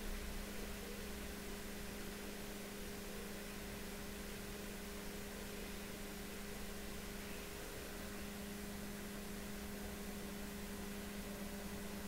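A steady low hum over a constant hiss, unchanging throughout.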